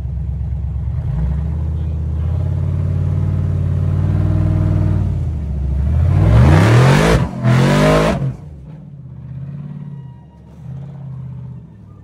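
Rock bouncer buggy's engine working steadily under load on a near-vertical rock climb, then revving up sharply twice about two-thirds of the way through, before dropping to a much quieter running as the buggy tops out and pulls away.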